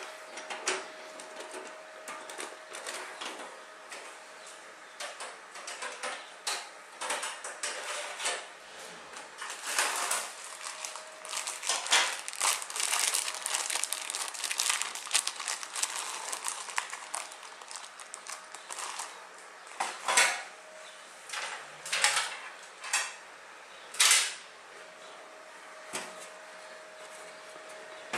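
Clicks, rattles and knocks of parts being handled in a Segotep Raynor steel mid-tower PC case. In the middle stretch a plastic zip bag of cable ties crinkles and rattles, and several sharp knocks follow nearer the end.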